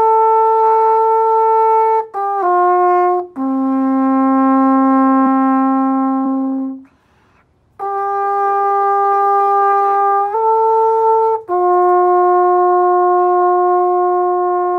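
Alphorn played as a slow melody of long held notes, about seven notes moving between a few natural pitches, with a short breath pause about seven seconds in.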